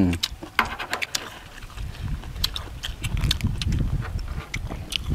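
Close-miked chewing and lip-smacking of people eating raw duck blood salad, with many short sharp clicks scattered throughout.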